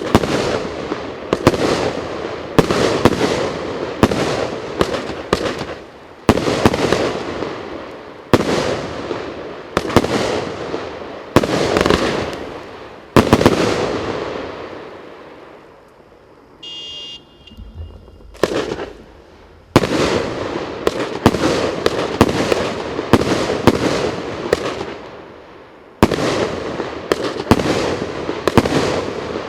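A 30 mm cake firework firing shot after shot: sharp bangs one to two seconds apart, each trailing off in a fading crackle. About halfway there is a lull of a few seconds, then the shots resume.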